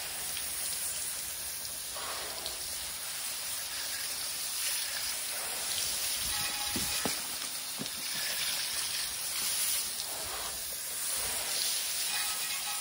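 Cordless electric spin scrub brush scrubbing a wet alloy wheel and tyre, with a steady hiss of water spattering off the spinning brush head. A faint whine shows briefly twice, about six and twelve seconds in.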